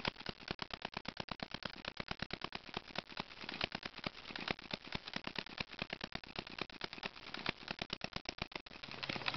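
Small model hit-and-miss engine running, a rapid, even clicking at about eight clicks a second with now and then a louder one.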